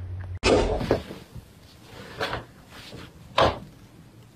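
A door knocking and bumping a few times: a longer noisy bump near the start, then two short sharp knocks about a second apart.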